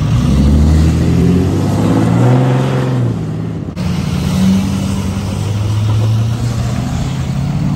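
Pickup truck engine revving hard, its pitch climbing and dropping, then after a sudden cut about four seconds in a steadier engine drone.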